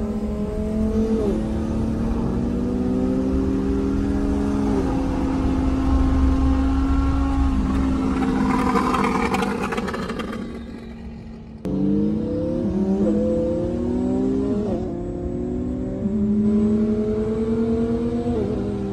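Lamborghini Huracán V10 accelerating hard at wide-open throttle, heard from inside the cabin. Its note climbs and drops back at each quick upshift through the gears, with wind and tyre noise underneath. The sound falls away briefly about ten seconds in, then cuts back in climbing through more upshifts.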